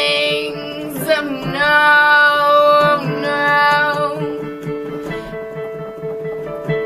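A woman singing held, gliding notes with no clear words over a plucked acoustic guitar. The voice enters about a second in and fades after about four seconds, leaving the guitar playing alone.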